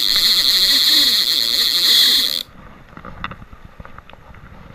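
A loud, steady high-pitched buzz that cuts off abruptly about halfway through. What is left is a faint stream-side background with a few light clicks.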